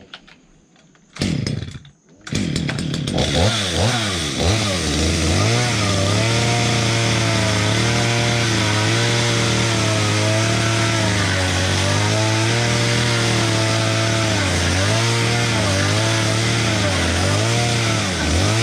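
A power tool starts with a short burst, then runs steadily with a motor sound, its pitch dipping briefly now and then as it takes load.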